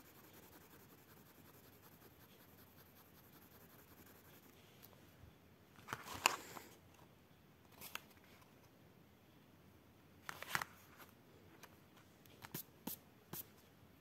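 Quiet room hiss broken by a handful of brief rustles and light clicks from handling: the strongest about six seconds in and again about ten seconds in, with three small clicks near the end.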